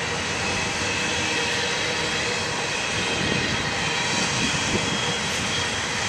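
Double-stack intermodal freight train rolling past at speed: a steady roar of steel wheels on rail and well cars, with a faint high whine held over it.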